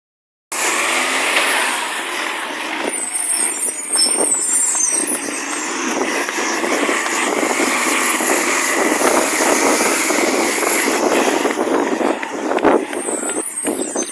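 Garbage truck running loud, its engine roaring from an exhaust leak, with high squeaks about three seconds in and again near the end. The sound starts suddenly after a half-second gap.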